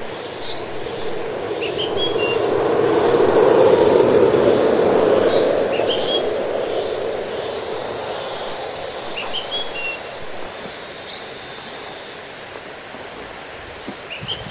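A vehicle passing by, its noise swelling to a peak about four seconds in and then fading away, while small birds chirp in short repeated calls.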